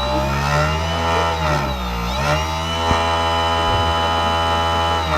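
Electric mixer motor on a pilot-scale cream reactor running, its whine gliding up and down in pitch as the speed changes, then holding steady at a higher speed.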